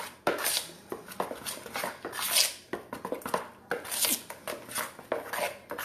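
Pancake batter being stirred with a utensil in a bowl: quick, uneven scraping strokes against the bowl, about two to three a second.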